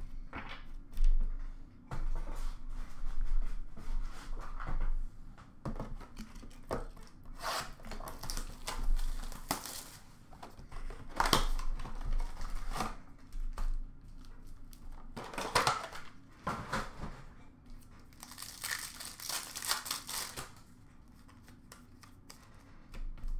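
Upper Deck hockey card packs being torn open and their wrappers crinkled, with cards and a cardboard blaster box handled. Irregular crackles and rustles throughout, with a longer run of ripping and crinkling about three quarters of the way through.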